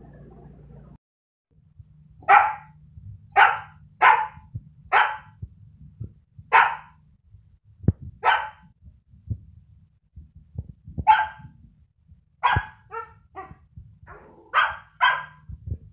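Siberian husky puppy barking: about a dozen short, sharp barks starting about two seconds in, irregularly spaced, with a few quicker doubled barks near the end.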